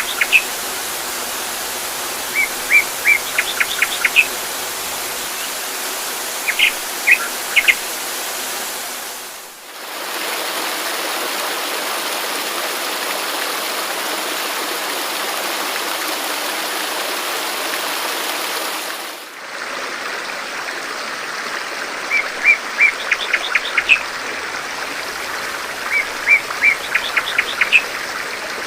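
Steady rush of running water, like a waterfall or stream, with small birds chirping in quick runs of high notes near the start and again in the last third. The water sound dips briefly twice, and the middle stretch is water alone with no birdsong.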